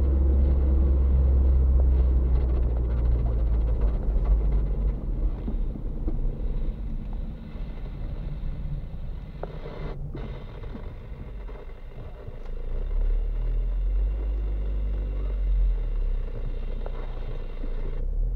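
Car driving, heard from inside the cabin: a steady low rumble of engine and tyre noise that eases off in the middle as the car slows, then picks up again.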